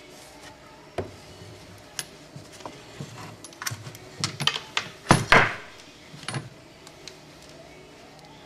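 Scattered metal clinks and knocks of hand tools and transmission parts being handled during the teardown of an automatic transmission, with a quick cluster of clanks a little past the middle, the loudest about five seconds in.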